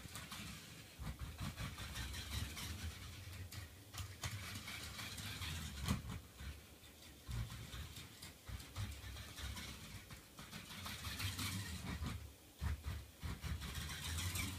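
Small electric drive motors and wheels of a Raspberry Pi–controlled toy car running on a wooden floor, a low rumbling hum in stretches that stops and restarts several times as the car is steered by switching keys. A sharp knock comes about six seconds in.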